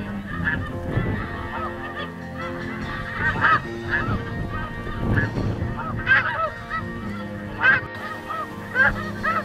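A flock of snow geese calling: many overlapping high, yelping honks, with a few louder calls standing out every second or two.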